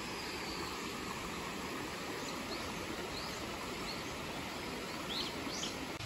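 Steady rushing of a rocky stream, with short bird chirps now and then and a few in quick succession near the end.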